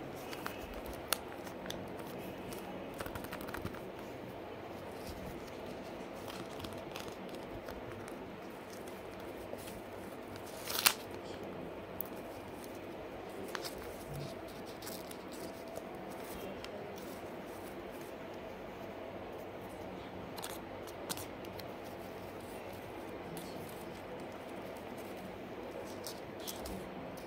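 Paper cutouts being handled and slid over a sheet of paper: soft rustling with scattered small taps and clicks, the sharpest about eleven seconds in, over steady background noise.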